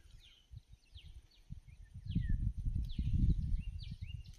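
Low rumble of wind on the microphone, heavier from about two seconds in, with a bird repeating short falling calls over it.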